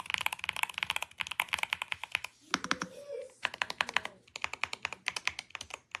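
Fast typing on a YUNZII B75 Pro 75% gasket-mount mechanical keyboard: a quick run of key clacks, with a short break about two and a half seconds in.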